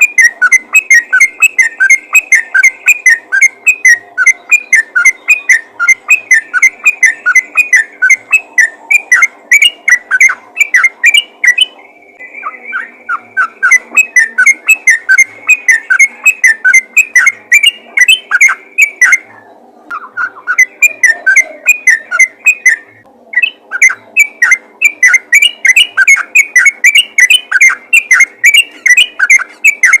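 Yellow-vented bulbul (trucukan) calling in a loud, rapid run of short chattering notes, about three to four a second, with a few brief pauses. It is the call that draws other bulbuls.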